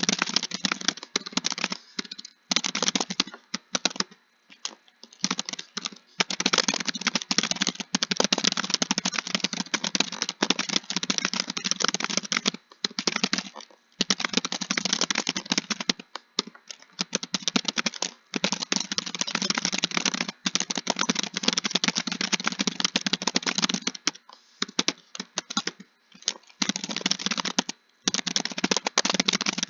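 Fast typing on a computer keyboard: dense runs of key clicks, broken every few seconds by short pauses.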